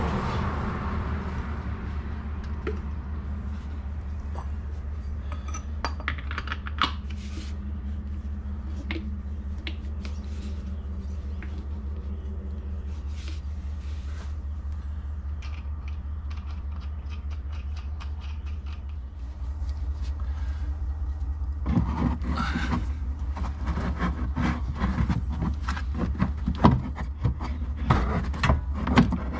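Scattered metallic clinks, clicks and scrapes of tools and shock-absorber parts being handled over a steady low hum, growing busier and louder about two-thirds of the way in.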